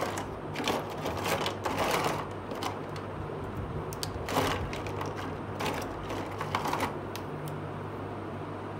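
Small plastic toy kitchen utensils being handled and set down on a cloth: irregular light clicks and short rustles, busiest in the first seven seconds, over a steady low hum.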